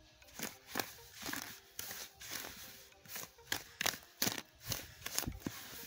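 Wooden spatula scraping and knocking against a plastic mixing bowl while creaming margarine and sugar, in irregular strokes about twice a second.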